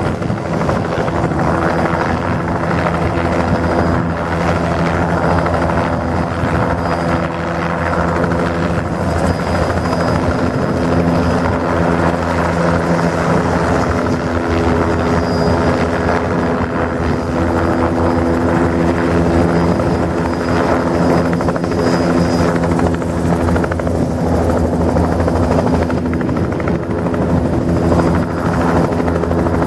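Bell 206B JetRanger II helicopter running steadily close by, its main rotor beating and its turboshaft engine giving a faint high whine, with no big change in power.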